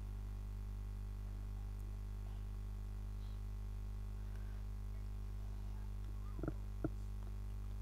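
A steady low electrical hum in the recording, with two short clicks close together near the end.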